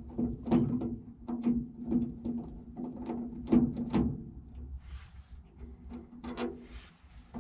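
Irregular clicks and knocks of a large Phillips screwdriver working the screws out of a truck door's outer handle, metal on metal.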